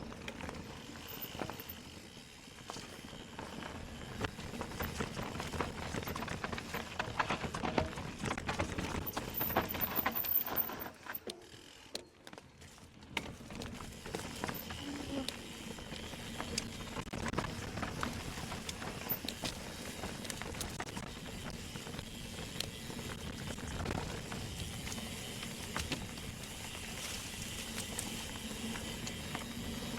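Specialized Turbo Kenevo SL e-mountain bike riding over a forest trail: tyre noise on dirt with frequent small knocks and rattles from the bike, dropping quieter for a moment about eleven seconds in.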